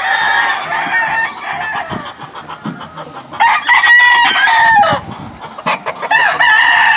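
Gamefowl roosters crowing: one long crow about halfway through and another beginning near the end, with fainter crowing in the first couple of seconds.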